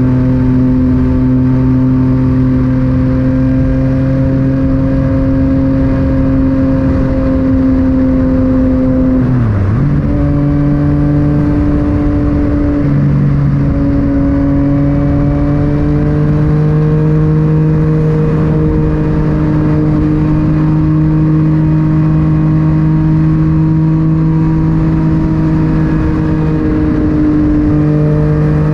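Yamaha MT-09 three-cylinder engine through an Akrapovic titanium exhaust, running under steady throttle on the road. About ten seconds in it briefly drops off and dips in pitch, as for a gear change or throttle-off, then picks up again. It has another short break a few seconds later, then holds a steady note that slowly rises in pitch.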